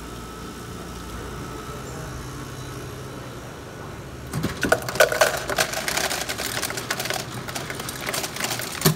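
Countertop ice dispenser dropping ice cubes into a plastic cup: a dense, clattering rattle that starts about halfway through and stops just before the end. Before it there is only a steady low hum.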